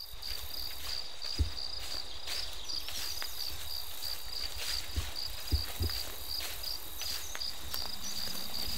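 Insects chirping in a steady, high, rapidly pulsing chorus over a hushed woodland background, with a few soft low thumps.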